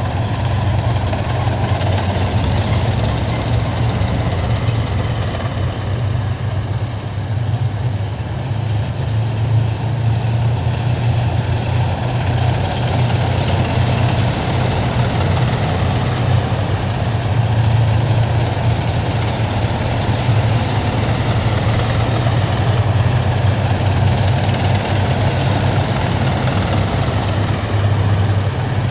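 Heavy military vehicles driving past in a column, their engines running with a steady, loud low rumble that holds without a break.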